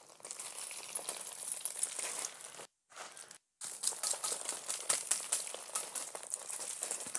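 Dried sesame stalks being threshed by tapping the bundle with an agricultural pipe: a dense crackle of small ticks as the dry pods and stalks rattle and sesame seeds patter onto a plastic tarp. The sound cuts out twice briefly a little under halfway through.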